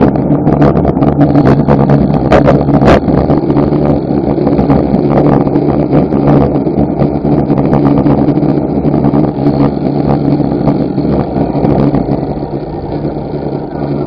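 Vehicle engine running steadily while driving slowly, with wind buffeting the camera's microphone; it gets quieter near the end as the vehicle slows down.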